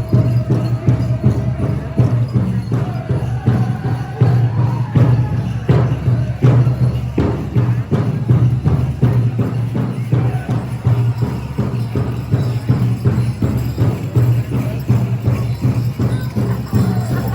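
Powwow drum group singing high, wavering song over a steady beat on a big drum, with jingling over the top.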